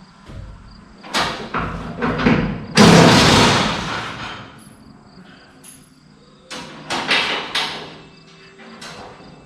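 Workshop knocks and clanks of metal work: several sharp knocks, then one louder, longer burst about three seconds in that fades over a second, and a few more knocks near the end.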